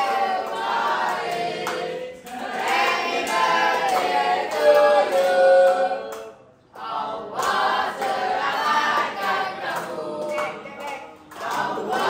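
Several voices singing a birthday song together, in phrases with brief pauses between lines.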